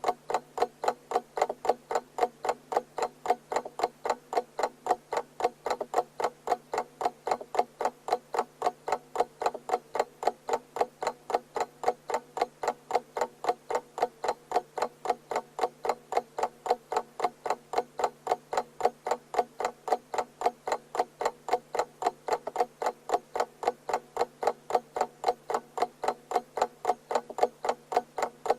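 Alarm clock ticking with fast, even ticks, about three a second, over a faint low hum.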